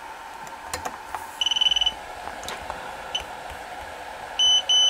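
Electronic beeps from a small FPV quadcopter powering up as it is plugged in to connect to its configuration software. There is one longer, fluttering beep, a short blip, then three short beeps at the same high pitch near the end, with a few light clicks before them.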